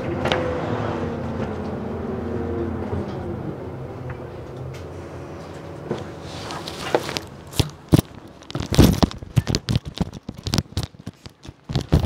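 Bus engine and drivetrain hum, falling slightly as the double-decker slows and fading over the first few seconds. From about seven seconds in, a quick run of irregular clicks and knocks follows: footsteps and a wheeled suitcase rattling over paving slabs.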